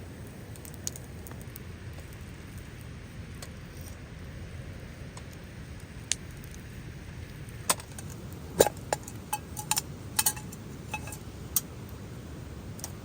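Hard items clinking and rattling together in a short cluster of sharp, briefly ringing clicks in the second half, over a steady low background hiss.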